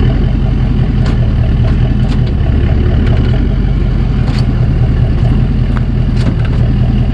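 A truck engine idling steadily close by, with a few short, light knocks over it.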